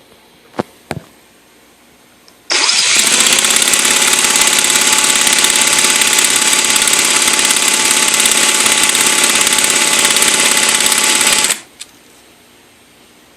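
Electric starter spinning a Redcat VX-16 nitro RC engine for about nine seconds: a loud, even, rapid buzz that begins and stops abruptly, with no sign of the engine firing on its own. Two sharp clicks come just before it.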